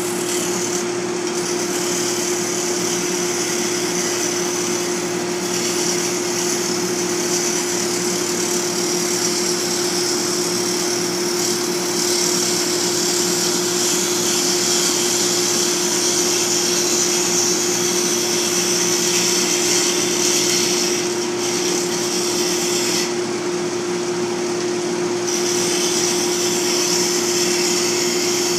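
Lathe running at a steady speed with a constant hum, and a high hiss of a tool cutting the spinning work. The hiss drops away briefly a few times, for longest about 23 seconds in.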